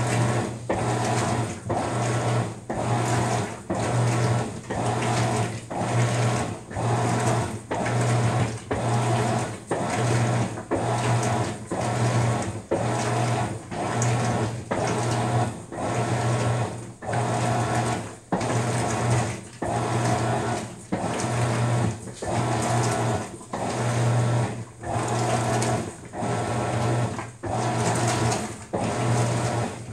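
Maytag top-load washer agitating a load of dish towels in its deep-water wash cycle. The drive motor hums and the load churns in a regular rhythm of about one stroke a second, pausing briefly as the wash action reverses.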